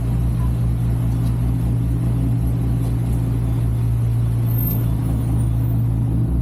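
Lexus IS 250's 2.5-litre V6 running steadily while the car drives, a low, even drone with no revving.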